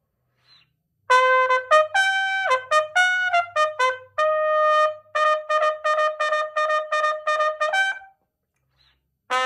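Solo trumpet playing an unaccompanied phrase: a few notes moving up and down, then a run of quick tongued repeats on one pitch, ending on a slightly higher note. It starts about a second in and stops about a second before the end.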